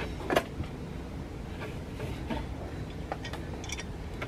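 A few light clicks and knocks of hands working on metal parts under the car's engine, the clearest about half a second in, over a low steady background hum.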